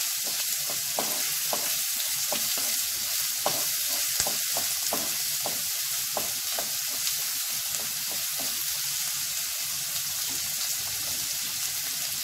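Chopped onion sizzling in hot oil in a kadhai on high heat, being stirred with a spatula that taps the pan now and then.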